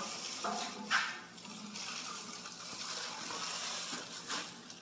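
Plastic wrapping rustling and crinkling as a long wrapped part is pulled out of a wooden shipping crate, with a sharper crackle about a second in.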